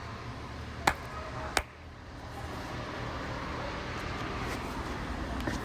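Kawasaki ZX-6R inline-four motorcycle engine idling with a steady low rumble, with two sharp clicks, one about a second in and another about half a second later.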